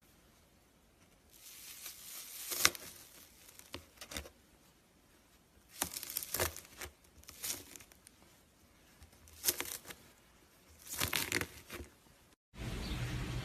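Crackling, crinkling handling noises in about five short bursts with quiet gaps between them. About a second before the end, they cut off and give way to a steady hum.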